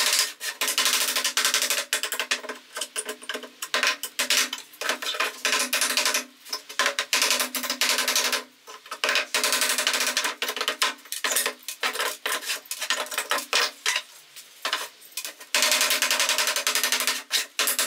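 Claw hammer striking nails in a wooden pallet board: rapid, repeated sharp metal-on-wood blows, pausing briefly about halfway through and again shortly before the end.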